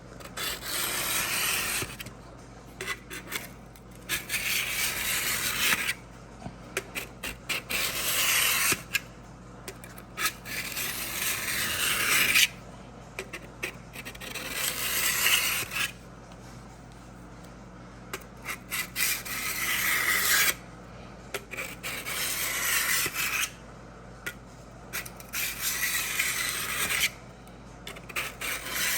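Drawknife's steel edge being honed on a 300-grit diamond sharpening block lubricated with WD-40: a gritty rubbing scrape in about eight long strokes of one to three seconds each, with short ticks between them as the block and blade are repositioned.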